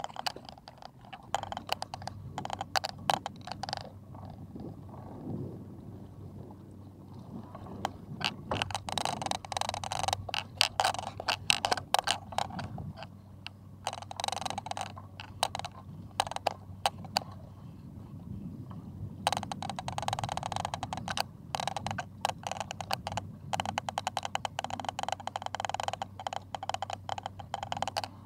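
Fishing reel being cranked while a fish is fought on a bent trolling rod: dense, irregular clicking and rattling in long stretches, over a steady low hum.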